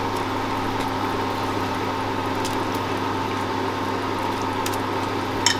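Masala water boiling in a biryani pot on the stove: a steady bubbling hiss over a low steady hum, with a few faint clicks near the end.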